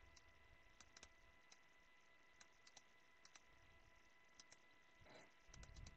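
Near silence with scattered faint clicks from a computer mouse, and a soft low rustle near the end.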